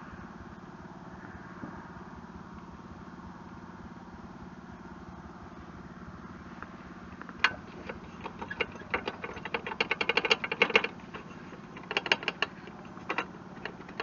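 Rapid metallic clicking and rattling in bursts, from about halfway in, as nuts on the Kubota BH77 backhoe's joystick control linkage are tightened to take out play. A steady low hum runs underneath.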